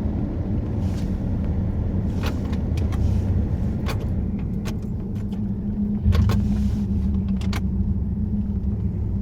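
Steady engine and road noise inside a moving Pontiac Grand Prix, with a few sharp clicks and knocks at irregular times; the low rumble swells about six seconds in.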